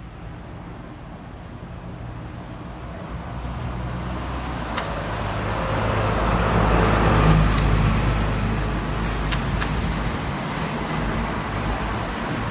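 A motor vehicle going by on a road: engine hum and tyre noise grow louder, peak about seven seconds in, then fade slowly.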